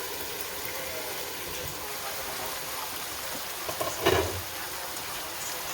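Food frying in a pan with a steady sizzling hiss. A short knock sounds about four seconds in.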